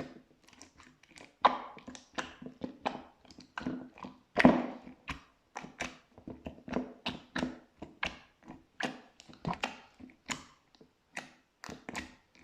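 Slime being pressed and squeezed by hand, making an irregular run of sticky clicks and small pops, a few a second. The loudest pop comes about four and a half seconds in.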